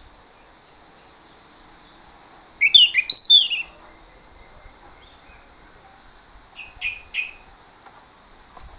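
Orange-headed thrush singing: one loud burst of quick, sweeping whistled notes about three seconds in, then a few fainter short notes around the seven-second mark, over a steady high hiss.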